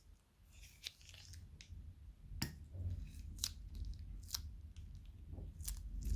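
Hands working crunchy slime-making materials: soft crinkling near the start, then about five sharp, separate crackles.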